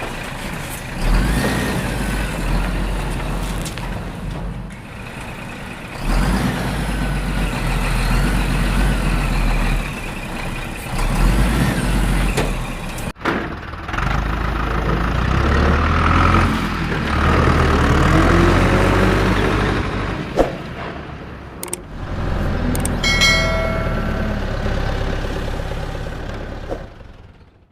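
Vehicle engine sounds that rise and fall in pitch, like engines revving, with a short horn-like beep near the end before the sound fades out.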